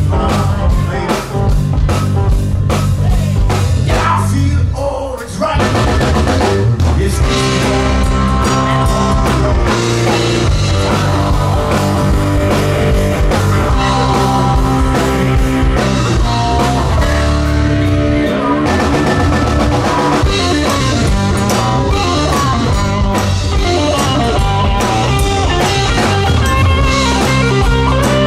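Live rock band playing with drum kit, electric guitars, bass and a male lead singer. Busy drumming opens, the sound drops briefly about five seconds in, then the full band comes back in.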